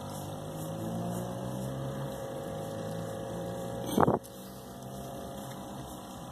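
Radio-controlled model boat's motor running steadily while the boat sits still at the water's edge, with a single short loud knock about four seconds in.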